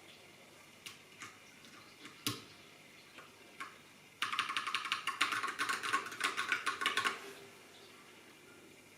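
Typing on a custom mechanical keyboard with Holy Panda tactile switches and PBT keycaps: a few separate keystrokes, then a quick run of rapid typing lasting about three seconds.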